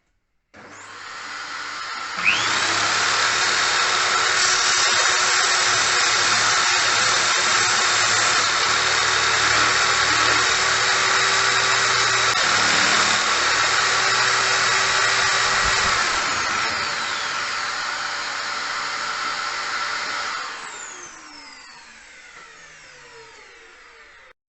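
Old electric drill motor driving a homemade disc sander: it starts up and comes up to speed over about two seconds, then runs steadily with a high whine. Near the end it is switched off and spins down, its pitch falling as it slows.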